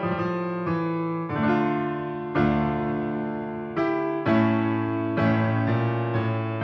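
Background music: a keyboard with a piano sound playing slow held chords, a new chord struck about once a second.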